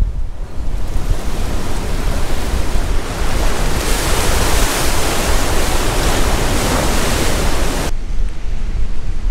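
Ocean surf breaking and washing up the beach: a steady rushing hiss that swells about four seconds in. It cuts off abruptly near the end, giving way to a quieter, rumbling wash of wind on the microphone.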